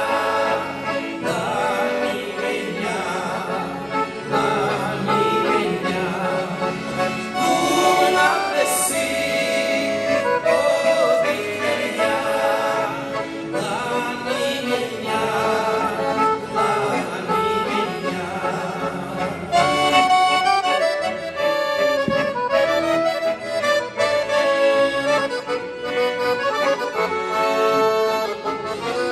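Two piano accordions playing together, with two men's voices singing over them for much of the time. Near the end the singing drops out and the accordions carry on alone.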